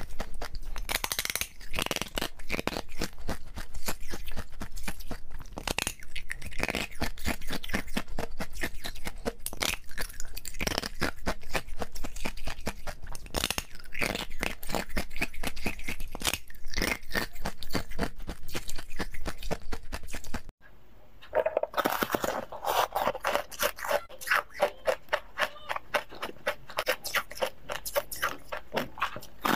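Close-up crunching and chewing of thin sheets of frozen Tartary buckwheat ice, a dense run of sharp cracks and crackles. About two-thirds of the way through, the sound cuts out for a moment and a second bout of ice crunching starts.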